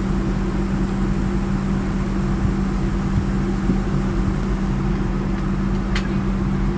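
Steady airliner cabin drone with a constant low hum. Near the end comes a single light click as the folding seat-back tray table is closed.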